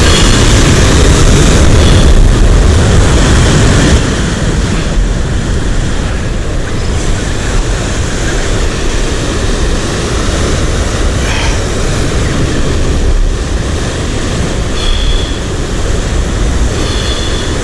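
Loud, steady rumble of wind and breaking surf, a little louder for the first few seconds.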